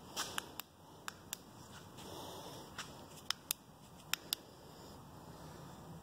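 A scattering of short, sharp clicks, several in quick pairs, over a low steady background hiss.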